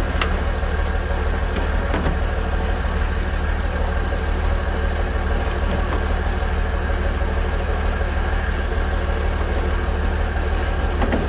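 Pickup truck engine idling steadily, with a light knock near the start and another about two seconds in as the snowmobile is handled in the truck bed.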